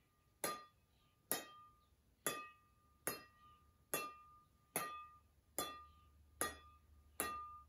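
A ball being tapped straight up again and again off a hand-held racket in forehand tap-ups: nine light hits, a little under one a second, each with a short ringing ping.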